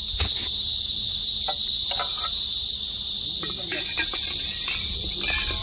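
A steady, high-pitched chorus of insects that does not let up. Faint distant voices come and go beneath it.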